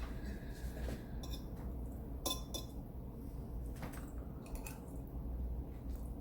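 Cutlery clinking and scraping against a dinner plate several times while eating, the sharpest clinks about a second and two seconds in.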